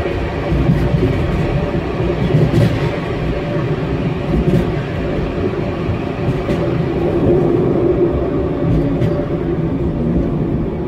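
Solaris Tramino S105P low-floor tram running along the track: a steady rumble of wheels on rails, with a few clicks.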